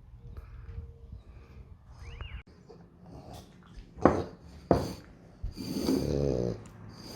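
French bulldog snorting: two sharp snorts about four seconds in, then a longer grunting snort near the end.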